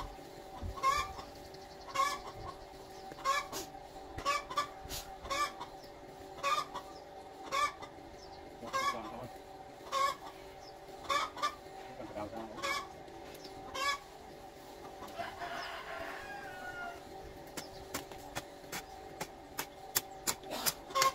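Chicken clucking, one short call about every second, over a steady faint hum.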